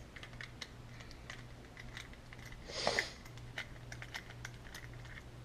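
Faint small clicks and scrapes of a Torx T8 screwdriver turning a screw out of an Xbox One controller's plastic shell, with one short hiss about three seconds in.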